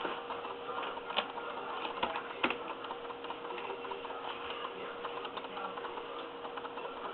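Carpet being cut out with a blade: a run of small, irregular ticks and snaps as it goes through the backing and fibres, with a few sharper clicks in the first few seconds. A faint steady hum runs underneath.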